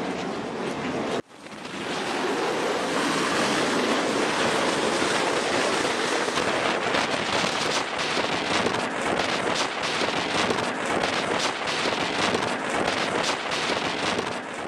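F/A-18 Super Hornet jet engines running on a carrier flight deck: a loud, steady roar. It cuts off sharply about a second in, comes straight back and swells over the next second, then holds steady until it fades out near the end.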